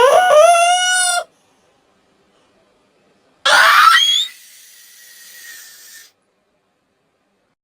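High-pitched cartoon character voice sneezing: a drawn-out 'aah' that rises in pitch for about a second, then about two seconds later a sharp 'choo' burst that fades into a fainter tail.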